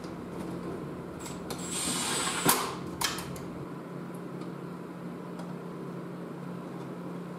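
Hand work on a transfer case: a brief hiss in the middle, then a sharp metal clank and a second, lighter knock about half a second later as tools and metal parts are handled. A steady low hum runs underneath.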